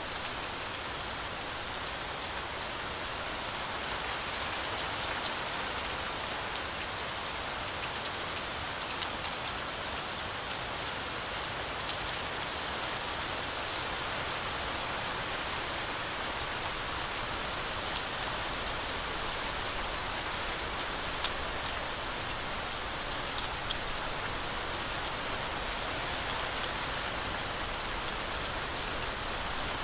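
Heavy rain falling steadily through a forest canopy: a continuous hiss with scattered individual drops pattering on leaves and surfaces.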